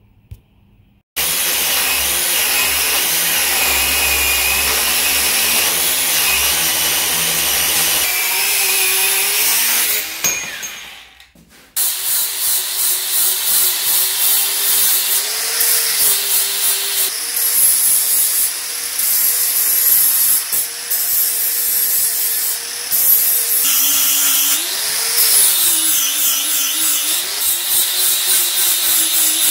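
Angle grinder grinding a hardened steel hammer head clamped in a vise. It runs steadily, winds down about ten seconds in, then starts again about a second later and grinds on, its motor pitch dipping and rising as the disc is pressed into the steel.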